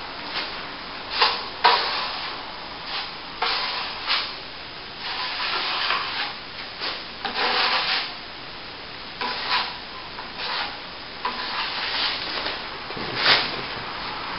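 Plastering trowel scraping over a wet, thin top coat on a plasterboard repair, in irregular strokes of varying length, as it is spread, wetted with water and smoothed.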